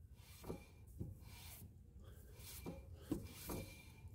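Brake shoes rubbing lightly against a new rear brake drum on a 2005 Honda Civic as the drum is turned by hand: a faint scraping in several short strokes. It is the light drag of correctly adjusted self-adjusting drum brakes.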